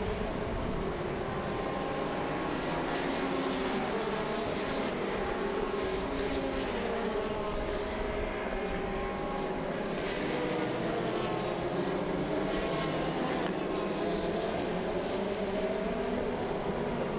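Formula Renault single-seater race cars' engines passing at speed, several at once, their pitches rising and falling as they rev and shift through the corners.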